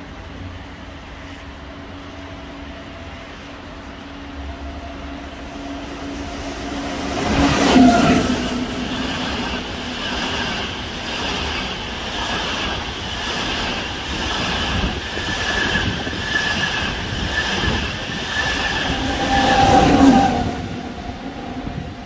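Frecciarossa 1000 high-speed electric train running through a station at speed: a steady hum grows as it approaches, a loud rush as the front passes about eight seconds in, then a long rush with a regular clatter of wheels as the cars go by, a second loud peak as the rear passes near the end, and a sudden drop.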